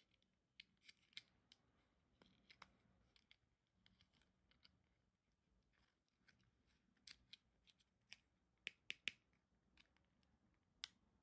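Light, scattered clicks and taps of small plastic toy pieces being handled during unpacking, with a quick run of three louder clicks about nine seconds in.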